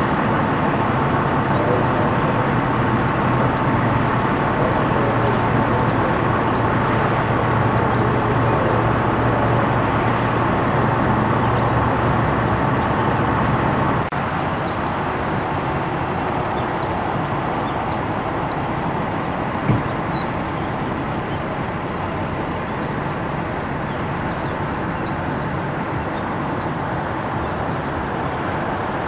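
Fire engine idling: a steady engine rumble with a low hum. The sound steps down a little about halfway through, and there is a single short knock later on.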